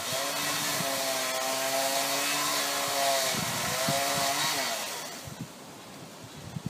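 Chainsaw held at high revs cutting out a branch. There is a brief dip about three and a half seconds in, then it revs again and falls away about five seconds in.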